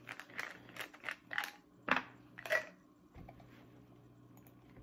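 Plastic vitamin bottles being handled, a string of clicks and crinkles in the first two and a half seconds with the loudest near two seconds in, then quiet apart from a faint low hum.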